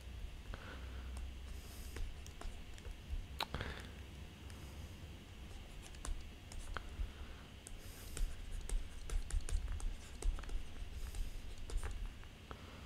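Faint irregular clicks and light scratches of a stylus writing on a tablet surface, busiest in the latter part, over a low steady hum.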